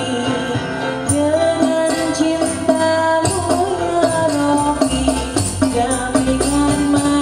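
Live Islamic rebana (hadrah) ensemble music: frame drums with jingles and a goblet drum beaten in a quick steady rhythm, under an electronic keyboard and a sung melody.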